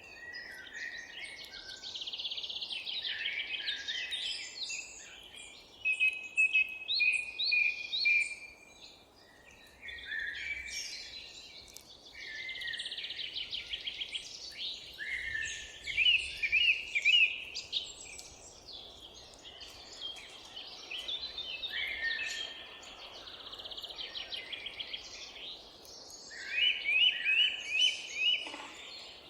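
Several songbirds singing at once, their chirps and trills overlapping continuously over a faint steady background hiss.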